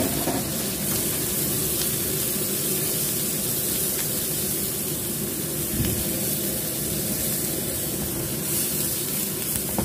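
Chopped garlic, shallots and ginger frying in hot oil in a frying pan, with a steady sizzle.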